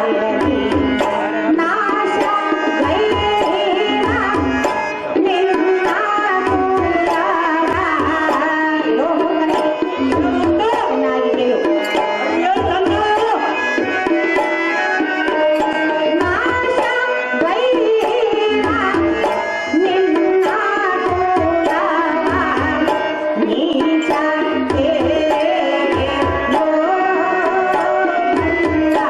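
Live stage music: tabla hand drums keep a steady rhythm under a continuous, gliding melody line.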